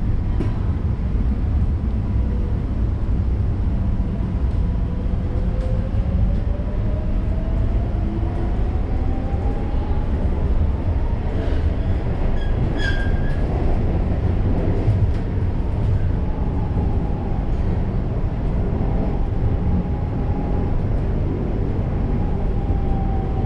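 Madrid Metro train running, a steady low rumble with an electric motor whine that rises in pitch from about five to ten seconds in as the train picks up speed, then holds; a few brief clicks and a short high squeal about halfway through.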